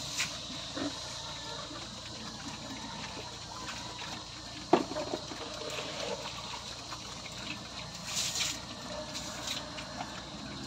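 Pigs feeding at a trough, with wet slurping and chomping. A single sharp knock about five seconds in is the loudest sound.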